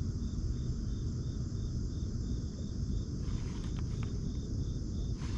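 An insect chirps steadily in a high, even rhythm of about three chirps a second, with a brief pause about three seconds in, over a low steady rumble.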